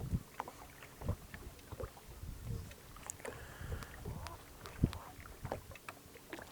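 Scattered light clicks and knocks with a few low thumps, one sharper knock just before the five-second mark: gear being handled in a small fishing boat.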